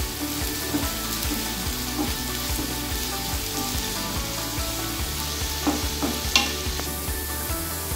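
Chopped onion sizzling in hot refined oil in a nonstick frying pan as it is softened, stirred with a wooden spatula that scrapes and taps against the pan.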